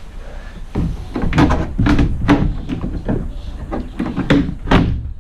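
Stuck bus interior cove panel above the windows being wrenched and prised loose: a run of irregular knocks and clunks, several a second, starting about a second in.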